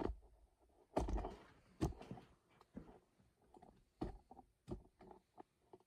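Scattered knocks and clunks of objects being handled and set down, with a few louder thumps and lighter taps between.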